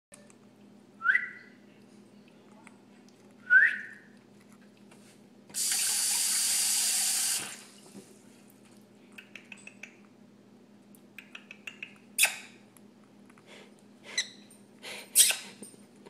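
Yellow-sided green-cheeked conure giving two short rising chirps a couple of seconds apart, then a steady rushing hiss of about two seconds. Afterwards come runs of small clicks as its beak pecks into a pile of pellets, and a few sharper sounds near the end.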